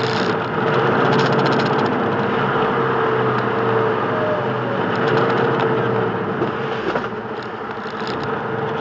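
Semi truck driving at highway speed, heard from inside the cab: steady engine and road noise with a steady whine running through it.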